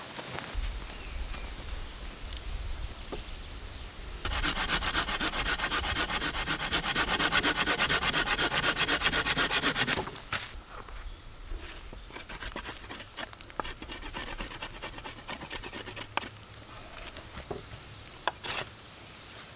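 Wood being rasped with fast, even strokes, loud for about six seconds from four seconds in. After that, a knife scrapes more quietly on a stick, with scattered clicks.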